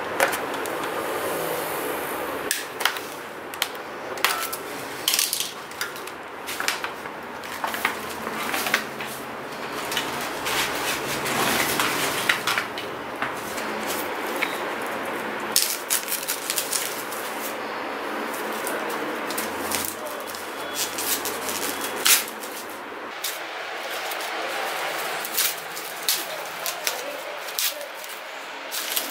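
Packing being stripped off a new mountain bike by hand: pliers snipping ties, then crinkling and tearing of plastic, foam and paper wrap from the suspension fork, with many sharp clicks and rattles of parts being handled.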